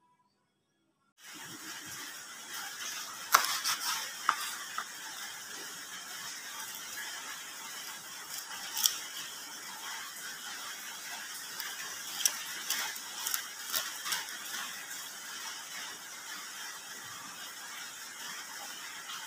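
Kitchen knife cutting through small mackerel tuna on a wooden cutting board: sharp knocks of the blade against the board, a cluster a few seconds in and more further on, over a steady hiss. It starts after about a second of near silence.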